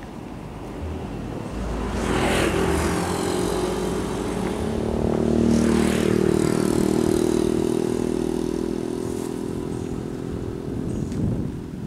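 A small engine running at a steady speed. It builds about two seconds in, is loudest in the middle and fades near the end, with two brief rushes of noise over it.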